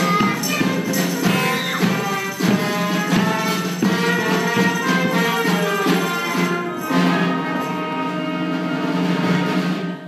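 Lively live band music with pitched instruments over regular percussion beats; about seven seconds in, the beats stop and the band holds one long chord, which cuts off near the end.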